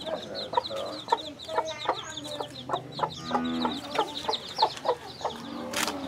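Chickens clucking in short, sharp calls over a rapid, continuous run of short high chirps.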